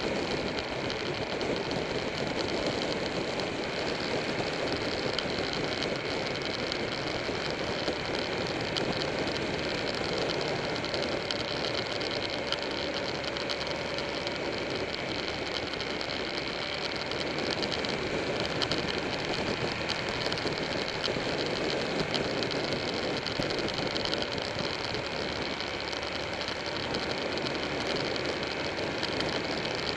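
Buell 1125R motorcycle's V-twin engine running steadily at cruising speed, with wind and road noise rushing over the bike-mounted microphone.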